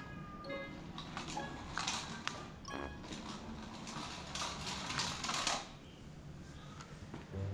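Remote-control toy mouse running across a tile floor, its small motor and wheels whirring in short bursts.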